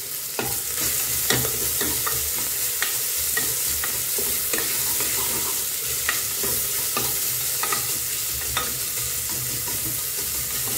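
Chopped onions with curry leaves and spices sizzling in hot oil in an aluminium pressure-cooker pot, steady throughout. A plastic spoon stirring them clicks and scrapes against the pot irregularly, about once a second.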